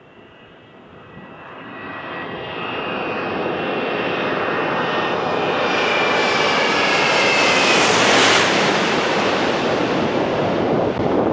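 Twin-engine jet airliner on final approach passing low overhead: its engine noise grows steadily louder, with a high fan whine sliding slowly down in pitch, peaks as it passes overhead about eight seconds in, then turns to a rougher rushing roar as it moves away toward the runway.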